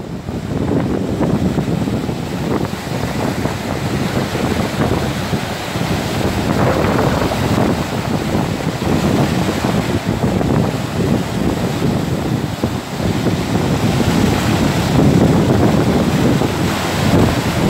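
Rough, wind-driven surf breaking and washing over shoreline boulders, with wind buffeting the microphone. The noise is continuous and surges unevenly as waves break.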